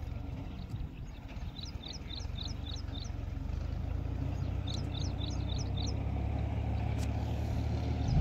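Tractor engine running under load as it drives a front-mounted reaper binder through standing wheat, a steady low hum that grows gradually louder as the machine approaches. Twice, a bird gives a quick run of high chirps over it.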